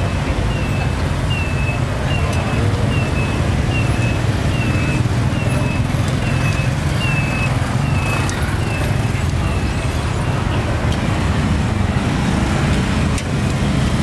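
Street traffic, motorbikes and cars passing in a steady rumble. A short high falling chirp repeats about twice a second through the first nine seconds or so.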